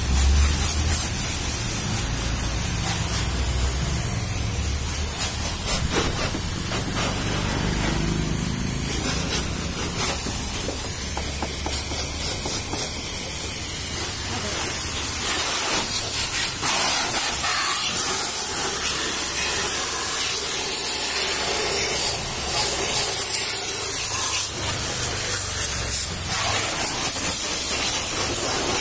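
High-pressure washer jet spraying water onto a car's windows and body panels, a steady hissing spray.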